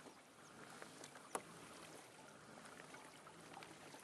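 Near silence with faint water sounds from a kayak being paddled: small scattered ticks and drips, and one sharp click about a second and a half in.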